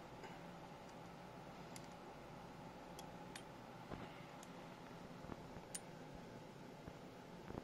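Faint, scattered small clicks of metal parts as hands handle and adjust a pinion gear remover clamped on an AEG motor, over a low steady hum.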